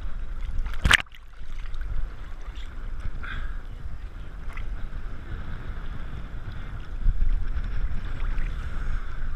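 Sea water sloshing and lapping against a camera held at the surface of the sea, with a sharp splash about a second in, after which the sound goes briefly muffled, then a few small splashes and drips.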